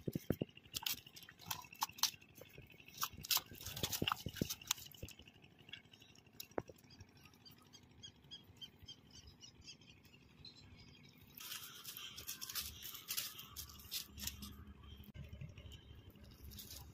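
Scattered clicks and taps as a freshly caught rohu is handled on the line and held up. From about two-thirds in there is a steadier rustling as the fish is slipped into a mesh net bag.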